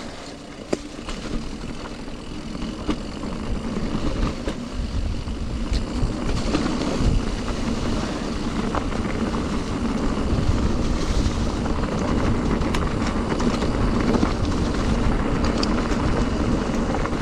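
Wind rushing over the microphone and tyre rumble from a mountain bike being ridden along a trail. It grows louder about four seconds in, with a few small clicks and rattles.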